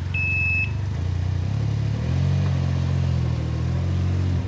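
Can-Am Ryker three-wheeler's engine running low and steady, rising a little in revs about two seconds in as the bike backs up in reverse. A single short high beep sounds at the start as reverse is engaged.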